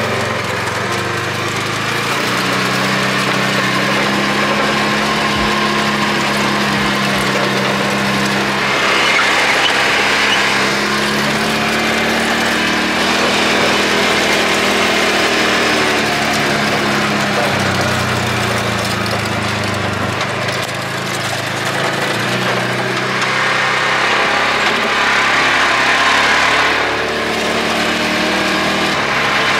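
Side-by-side UTV's engine running while driving, its pitch rising and falling several times as the throttle changes.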